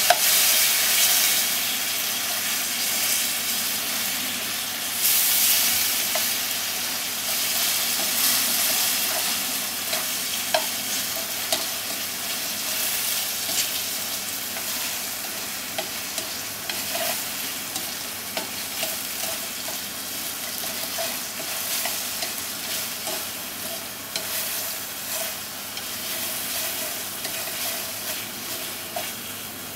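Scallop frills sizzling in sauce in a non-stick frying pan, stirred with wooden chopsticks that tick and scrape against the pan now and then. The sizzle is loudest at the start and slowly dies down as the sauce cooks down to a glaze.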